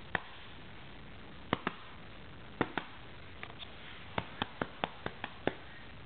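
A hyacinth macaw's beak clicking and tapping in play: about fourteen short, sharp clicks, coming singly or in quick pairs, closer together in the second half.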